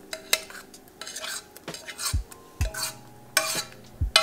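Metal spoon scraping and clinking against a saucepan and a ceramic bowl as soft cooked oatmeal is scooped out and dropped into the bowl, with a few dull knocks near the middle and end.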